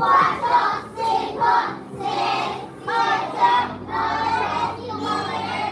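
A group of young children singing together in unison, in short, evenly paced phrases with held notes.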